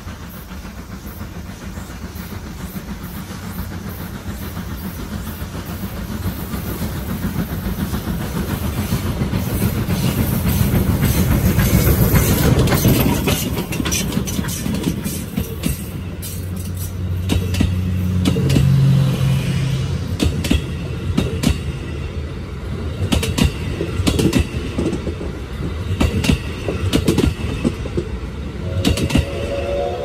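Steam locomotive hauling passenger coaches, working hard: its deep rumble grows louder until it passes about twelve seconds in. Then the coaches roll by, wheels clicking over the rail joints, and a steam whistle starts just before the end.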